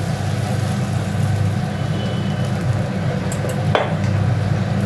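Water poured into a hot kadai of fried potatoes and spice paste, sizzling and bubbling as it is stirred with a wooden spatula, with one sharp knock of the spatula against the pan near the end. A steady low hum runs underneath.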